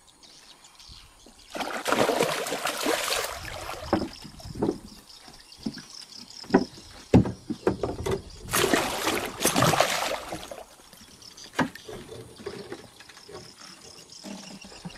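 A hooked giant snakehead (toman) thrashing at the surface beside a small boat: two bursts of splashing, one about two seconds in and one past the middle, with scattered knocks in between.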